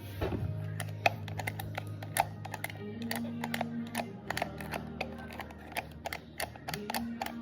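Small plastic toy pieces clicking and tapping as they are handled and fitted together: many quick, irregular clicks. Soft background music with sustained low notes plays underneath.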